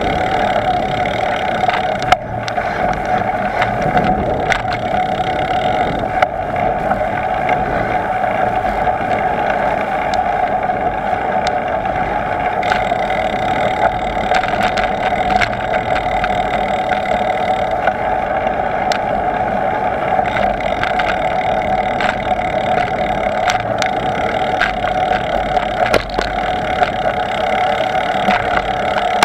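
Steady rush of wind and tyre noise on a camera riding along on a moving bicycle, with occasional short clicks and knocks from bumps in the road.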